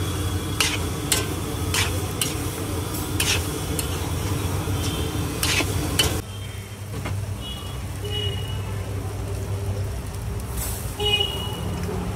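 Long metal spatula scraping and clanking against a large metal kadhai as poha is stirred, with about seven sharp strokes over the first six seconds. Then the stirring stops and only a steady low hum remains.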